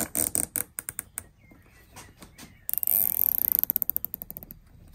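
Nylon cable ties being pulled tight through their ratchet heads: a few quick clicks at the start, then a longer, rapid run of ratcheting clicks from about three seconds in to about four and a half seconds.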